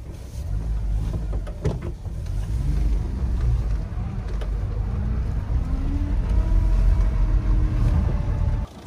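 Daihatsu Hijet kei truck's small three-cylinder engine and tyres rumbling as it drives over a rough gravel and sand track, with a few sharp knocks from the body. The engine note rises a little in the second half, and the rumble drops off abruptly near the end.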